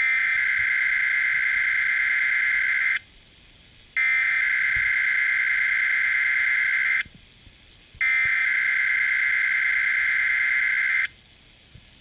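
Weatheradio Canada SAME digital header heard through a Baofeng UV-5R handheld's speaker: three buzzy, warbling data bursts of about three seconds each, separated by one-second pauses of radio hiss. This is the coded alert header that opens the Required Weekly Test broadcast.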